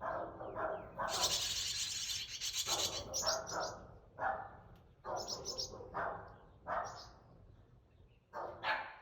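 Baby birds in the nest giving high-pitched begging chirps, a rapid run of them about a second in lasting some two seconds, then shorter bursts. Repeated short, lower-pitched calls sound between them.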